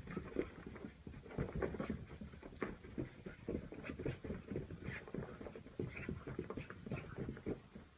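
A dog making a quick, irregular run of short, fairly faint sounds.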